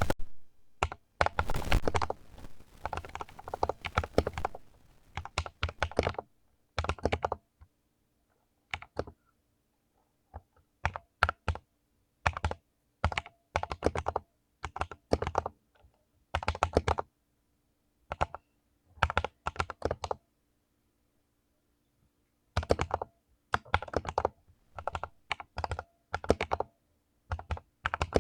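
Mechanical keyboard with clicky blue switches being typed on in short bursts of rapid keystrokes, with brief pauses between bursts and a dense flurry in the first few seconds.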